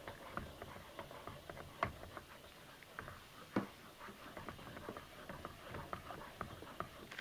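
Stick blender, switched off, stirred by hand through thick lard soap batter in a crock pot: faint, irregular clicks and soft taps of the blender head against the crock. Two of the taps, about two and three and a half seconds in, stand out.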